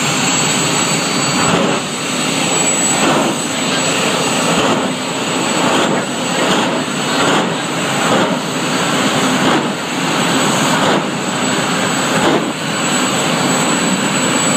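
Jet dragster's turbine engine running loud and steady, a rushing roar with a thin high whine over it, swelling and easing in irregular surges.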